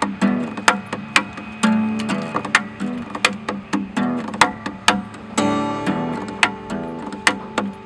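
Solo acoustic guitar playing a fingerstyle piece: plucked notes and strums, punctuated by sharp accented strikes.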